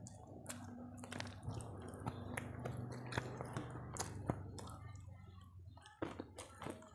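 A person chewing crunchy food close to the microphone: a run of sharp crunches and wet mouth sounds, thinning out in the last second or so.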